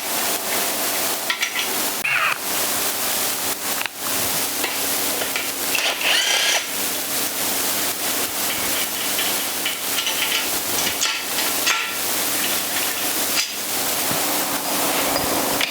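Main bearing caps being worked off a Chevrolet 327 small-block's bare block: scraping and rubbing of metal parts, light clinks and a few short metallic rings, over a steady hiss.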